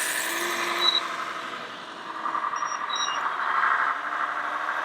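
Radio-controlled model construction machines running: a steady whirring of small electric motors and gearboxes that swells and dips, with a few short high beeps about halfway through.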